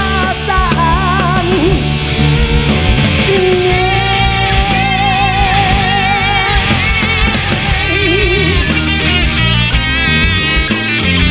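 Rock band playing an instrumental passage, the singer's last held word ending near the start, then a lead guitar line of long notes with a wavering vibrato over drums and bass.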